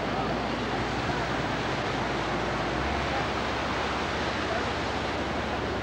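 Churning wash of the PT50 hydrofoil passing close alongside, a steady rush of water, with a low steady drone of its engines underneath.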